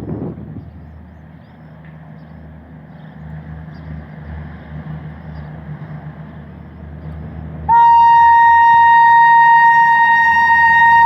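Passenger train approaching at slow speed, a low rumble with a steady hum growing gradually louder. About three-quarters of the way in, the WAP-7 electric locomotive sounds one long, loud horn blast on a single pitch that carries on to the end.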